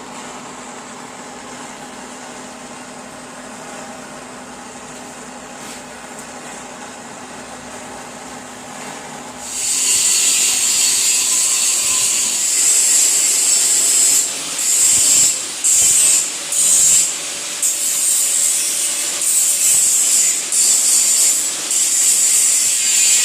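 Electric arc welding on steel: a low steady hum, then about nine and a half seconds in the arc strikes with a loud, steady crackling hiss that stops and restarts several times in short runs, as tack welds are laid.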